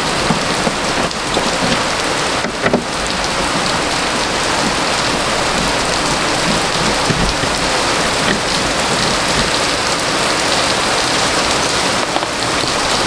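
Heavy rain coming down hard, a steady even hiss, with a couple of brief knocks about one and two and a half seconds in.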